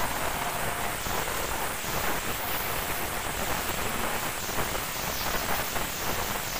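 Passenger coaches of an express train passing close by: a steady rushing of steel wheels rolling on the rails.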